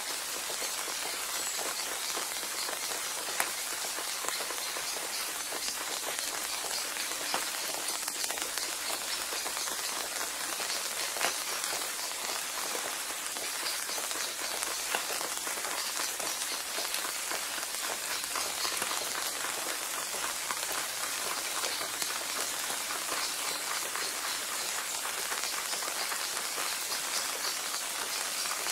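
Steady rain, a dense, even hiss of drops with a few louder single drops now and then.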